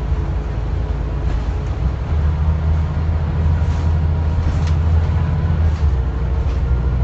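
Scania N94UD East Lancs OmniDekka double-decker bus heard from inside the saloon while under way: the diesel engine and drivetrain drone low and steady. The drone grows fuller about two seconds in, with a few faint clicks and rattles over it.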